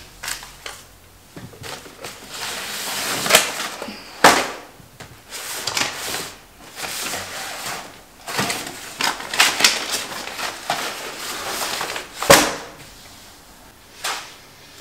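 Stacks of paper and artwork being handled and rustled, with several sharp knocks and clatters among the rustling.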